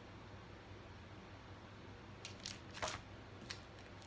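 Faint rustle and a few soft clicks of cross-stitch chart packets in plastic sleeves being handled and set down, bunched together from about two and a half seconds in, the loudest near three seconds in, over a low steady hum.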